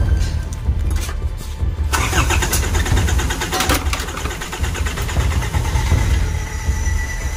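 Isuzu Trooper's 4JX1 four-cylinder diesel engine running after a hard start, a steady pulsing rumble, with a harsher, brighter clatter joining about two seconds in.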